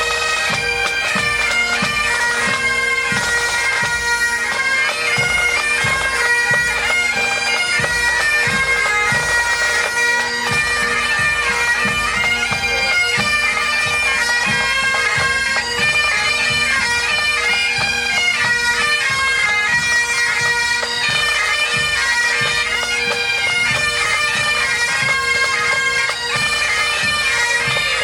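Scottish bagpipe playing a tune: a steady drone under a stepping chanter melody, with a drum beating a steady rhythm underneath.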